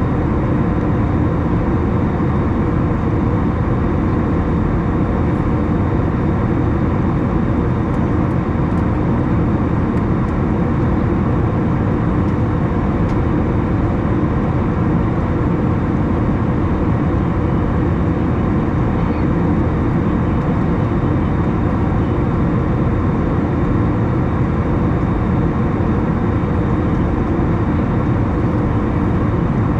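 Airbus A321 cabin noise in climb above 10,000 feet: a steady roar of the jet engines and rushing air with a faint low hum.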